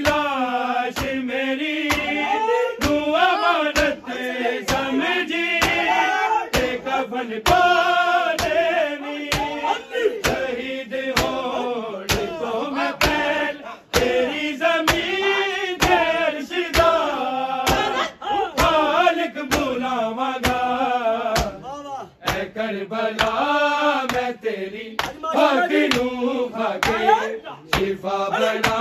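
Male voices chanting a Punjabi noha lament, the melody carried throughout, over a steady rhythm of sharp hand strikes of matam (chest-beating), about two a second.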